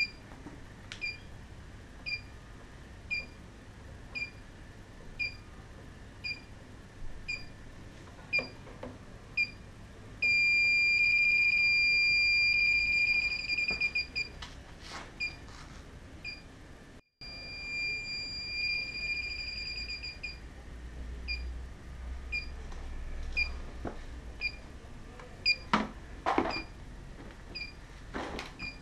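Inficon D-TEK Select refrigerant leak detector beeping about once a second. Twice, about ten seconds in and again past the middle, the beeps run together into a loud steady tone for a few seconds, then break up and slow back down: the detector sensing refrigerant. A few handling knocks come near the end.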